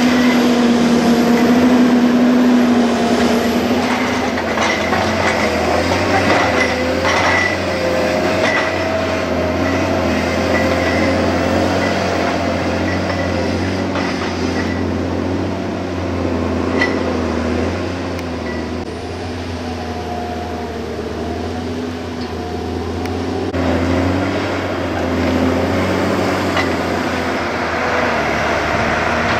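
Forestry forwarder's diesel engine running steadily as the tracked machine drives, with a wavering hydraulic whine over it and small metallic clinks from the track chains on its bogie wheels.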